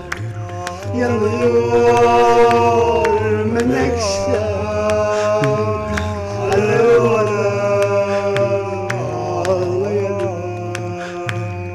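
A man singing long, ornamented held notes that slide up and down between pitches, over backing music with a steady low bed and a light regular beat.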